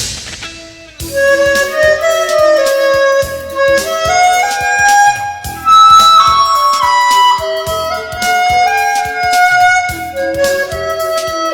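Instrumental pop music: a single-line lead melody over a steady drum beat. It comes in fully about a second in, after a cymbal-like crash.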